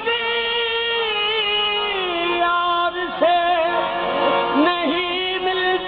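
Qawwali singing with harmonium: a lead voice holds long, wavering melismatic notes over sustained harmonium tones, shifting pitch a few times.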